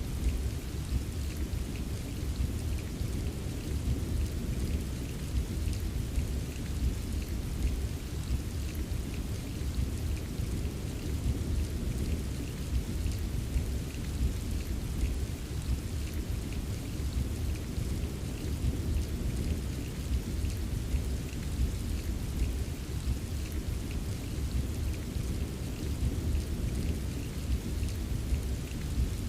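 Steady rain with a continuous low rumble of distant thunder underneath and light patter of drops.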